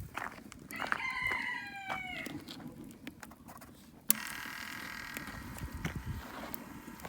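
A rooster crows once, a call of about a second and a half starting about a second in and falling slightly at the end. A sharp click follows about four seconds in.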